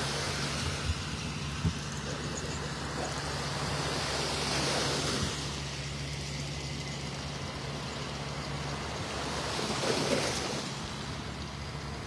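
Tractor engine running with a steady low hum that fades out about nine seconds in, over small waves washing up on the sand that swell twice.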